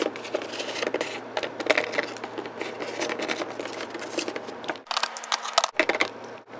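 Irregular small clicks, taps and rustles of plastic Littlest Pet Shop toy figures and props being handled and set down on a wooden tabletop.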